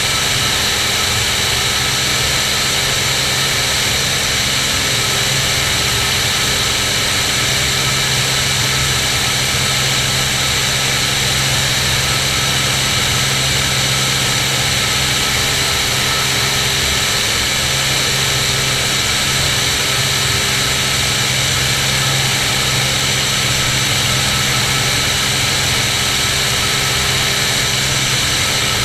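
Cirrus SR22's six-cylinder Continental engine and propeller droning steadily in flight, with a constant hiss of rushing air.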